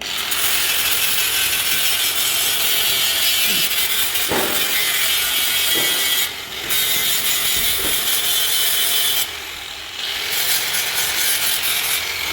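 Loud, steady rasping hiss of a workshop power tool running, cutting out briefly about six seconds in and again for about a second near nine seconds.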